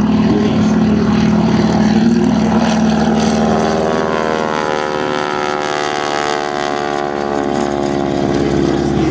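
Large radio-controlled scale propeller plane making a low pass, its engine and propeller running steadily; about halfway through the engine note dips in pitch and then climbs again.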